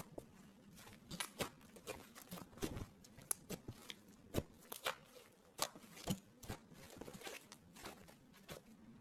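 Slime clay being worked by hand, giving a run of irregular sharp crackles and clicks that die away near the end.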